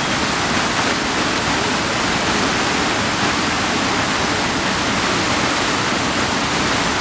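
Rushing creek water, a loud, steady, even noise with no breaks.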